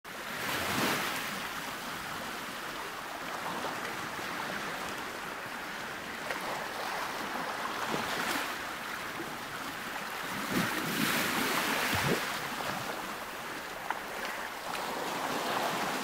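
Sea surf washing on a shore, a steady rush that swells every few seconds, with some wind.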